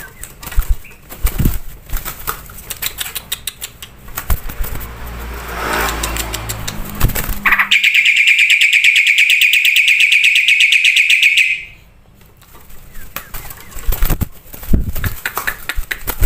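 Bird song of rapid clicks and short chirps, with a loud, fast pulsing trill lasting about four seconds in the middle.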